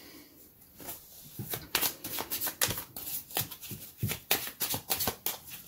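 A deck of cards being shuffled by hand: a rapid, irregular run of sharp card clicks and slaps starting about a second in.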